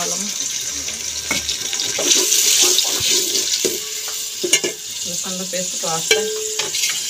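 Onions and garlic paste sizzling in hot oil in a metal pot, a steady hiss, with a metal spoon stirring and knocking against the pot now and then.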